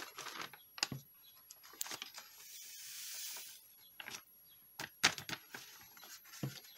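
A sheet of paper being creased and handled, with a soft hiss from about two to three and a half seconds in as fine embossing powder slides off the paper into its jar, and a few light taps and clicks.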